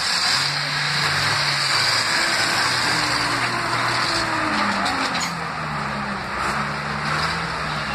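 Steady street traffic noise, with vehicle engines running and their low hum drifting slowly in pitch.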